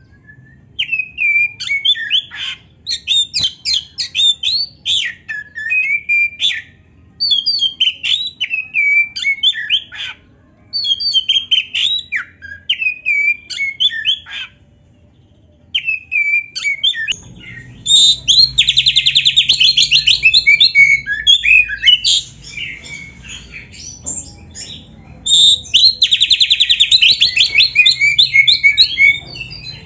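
Oriental magpie-robin (kacer) singing loudly: varied whistled phrases a few seconds long with short pauses between them, then about halfway a denser song with two long, fast trills.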